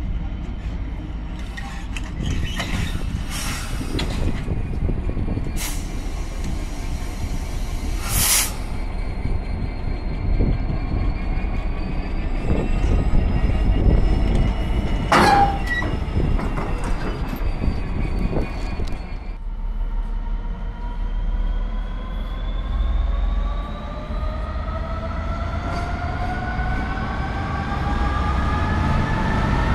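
Class 66 diesel freight locomotives running past with wagons: a steady low engine and wheel rumble, broken by short sharp clatters and wheel squeals in the first part. After a cut about two-thirds in, another Class 66 approaches with a steadily rising engine note.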